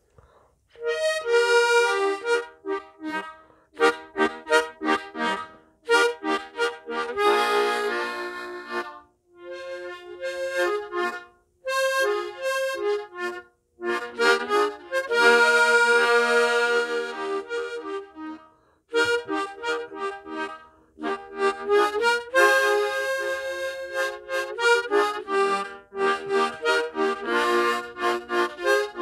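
A Hohner 'Corno de caza' mouth organ from about 1923, tuned in E sharp, playing a tune in chords, several reed notes sounding together. The tune comes in short phrases broken by brief gaps.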